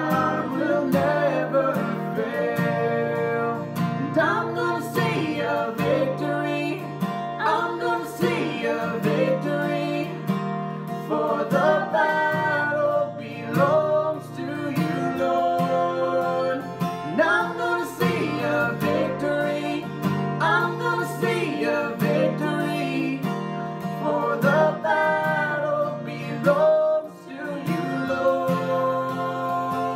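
A man and a woman singing a worship song together to acoustic guitar accompaniment.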